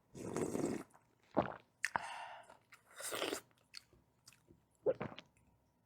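A person eating: biting and chewing food in about five short separate bursts, some with a crisp crunch.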